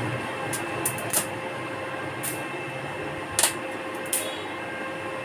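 Arc welding machine running: a steady electrical hum with about six short, sharp crackles scattered through.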